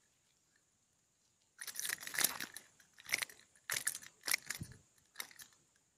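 Close crunchy rustling from handling near the microphone, in a run of irregular bursts that begins about a second and a half in, after a near-silent start.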